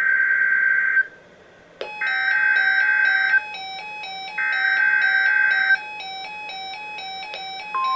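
Emergency Alert System SAME header: three digital data bursts of about a second each, with a bright beeping electronic melody starting under the second burst. Near the end the steady single-pitch NOAA Weather Radio alert tone begins.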